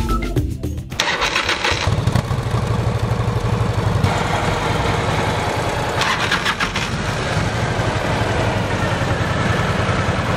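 Indian motorcycle's V-twin engine being started about a second in, then running with a low pulsing beat. A second short burst of higher noise comes about six seconds in.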